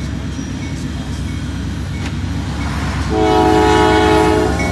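Norfolk Southern GE Dash 9 diesel locomotive passing close by with a steady low rumble. About three seconds in it sounds one horn blast of about a second and a half, several tones together.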